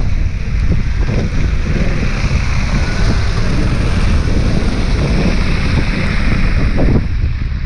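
Heavy wind buffeting the camera's microphone while riding a bicycle, a steady loud rumble with no break.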